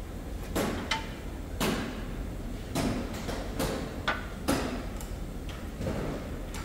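Irregular metallic knocks and clanks, about seven of them, as crumpled front-end sheet metal of a wrecked car is handled and worked by hand. One knock about a second in rings briefly. A steady low shop hum runs underneath.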